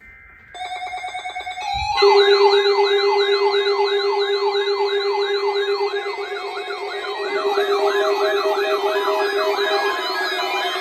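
Electronic siren alarm: a short steady tone, then a fast pulsing beep, then about two seconds in a loud wail sweeping up and down about two and a half times a second over a steady low tone and higher warbling tones.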